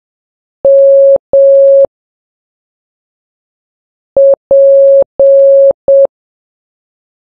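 Morse code practice tone beeping: two long dashes, then after a pause a dot, two dashes and a dot, spelling the letters M and P.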